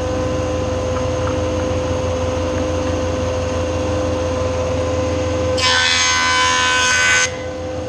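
Jointer running at speed with a steady hum. About five and a half seconds in, its cutterhead cuts into a glued-up wood strip panel being face-jointed: a loud cutting noise that lasts under two seconds, and then the machine runs on.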